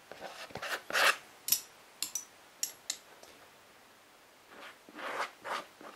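Metal spatula spreading G10 contact glue on the edge of a soft foam mask piece: a few sharp clicks and scrapes in the first three seconds, then a softer rubbing about five seconds in.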